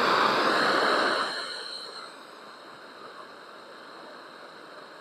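Small propane hand torch burning with a steady hiss, loud for about the first second, then dropping to a quieter steady hiss.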